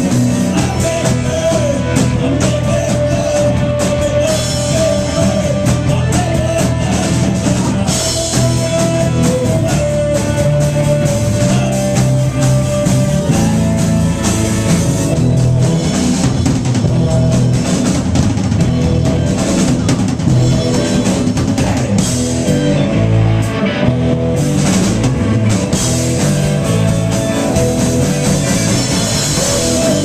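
Live rock band playing a song on electric guitar, electric bass and drum kit, with a held melody line over the band in the first half.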